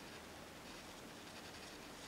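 Faint scratchy strokes of a paintbrush working acrylic paint on canvas, mostly in the second half, over a steady background hiss.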